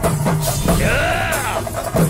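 Film background score: a steady beat of deep, heavy drum strokes. About a second in, a wailing tone rises and falls over the drums.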